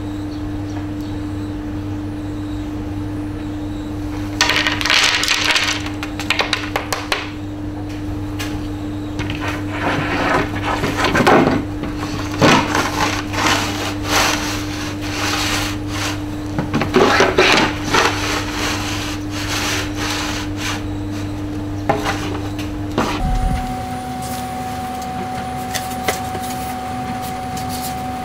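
Irregular scraping strokes of a clothes iron pushed over a wooden board, grinding chalk pastel pieces against the wood, over a steady low electrical hum.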